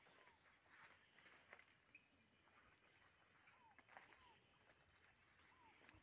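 Faint tropical forest ambience: a steady high-pitched insect drone, a few short chirping calls, and soft footsteps through vegetation.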